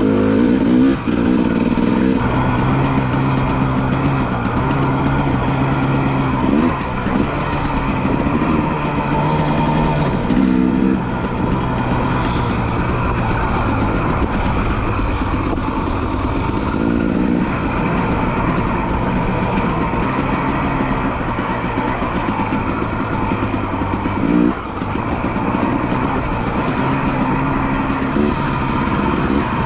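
Dirt bike engine running under way, its pitch holding steady for stretches and stepping up and down with throttle and gear changes, with a few brief drops in revs.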